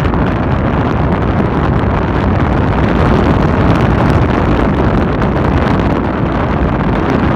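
Strong wind blowing across the phone's microphone on the deck of a moving ship, a loud, steady rumbling rush of noise.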